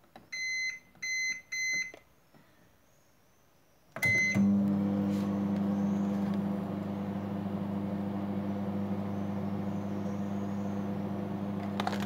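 Microwave oven keypad beeping three times as the cooking time is keyed in, then after a short pause one more beep and the oven starts running with a steady low hum.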